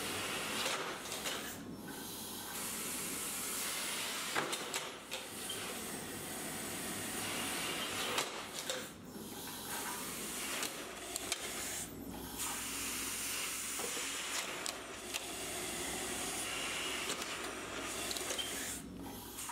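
Air rushing through a vacuum tube lifter as it grips and lifts a plastic crate: a steady hiss, broken by several brief dips, with a few light clicks.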